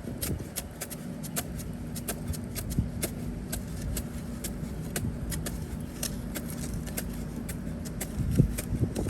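A steady low mechanical hum, like an engine or motor running, with many scattered sharp clicks and a few louder knocks near the end.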